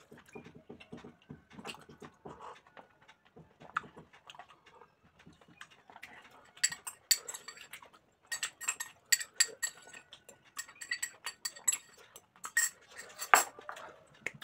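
Close-mic eating: mouth and chewing sounds, then from about six seconds in a metal spoon repeatedly clinking and scraping against a small glass bowl as he eats from it, with one loudest clink near the end.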